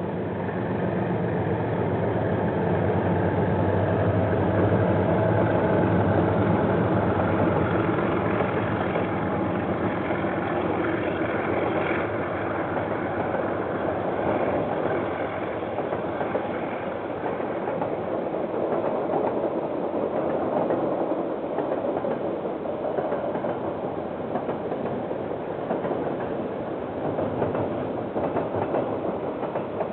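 KiwiRail diesel locomotive passing close by, its engine loudest in the first several seconds. Then the train's wagons roll past in a steady rumble on the rails.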